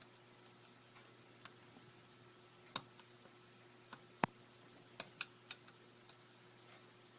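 Irregular light clicks and taps of small plastic parts of a dual flush toilet's flush-button mechanism being handled during disassembly and cleaning. The loudest tap comes about four seconds in, followed by a quick cluster of smaller clicks.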